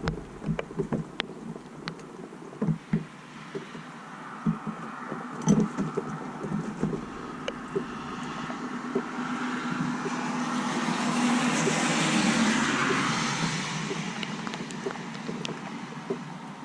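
A vehicle passes on a wet road: a hiss of tyres swells over several seconds, peaks past the middle and fades away. Scattered light taps come before it.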